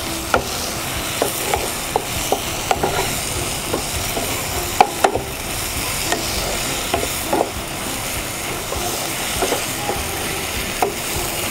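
A cooking utensil stirring potatoes, tomatoes and freshly added spice powders and ginger-garlic paste as they fry in a pan. A steady sizzle runs throughout, with irregular clinks and scrapes of the utensil against the pan.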